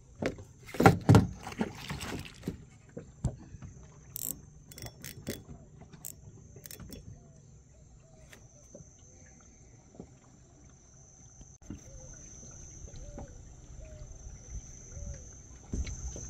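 Knocks and clattering of fishing gear against the boat's hull for the first couple of seconds, then a steady high-pitched drone of insects, growing stronger in the second half, with faint short chirps and an occasional click.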